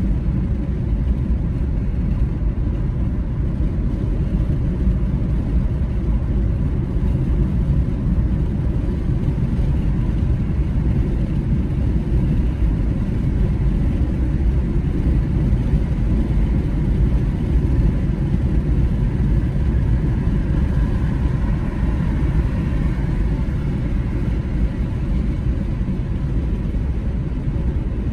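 A car driving along a road at a steady speed: a continuous low rumble of tyres and engine, with a faint steady whine above it.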